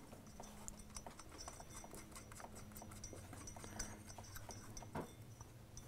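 Clutch hub nut being threaded by hand onto the mainshaft of a Honda CRF450, with faint, scattered small metal clicks and ticks.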